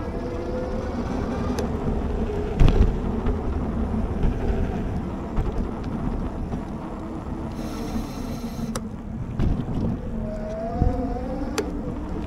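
Riding noise from a Lectric XP Lite e-bike: a low rumble of wind on the action camera's microphone and tyres rolling on pavement, with a rising whine of the hub motor near the start and again near the end. A sharp knock sounds a little under three seconds in, with a few lighter clicks later.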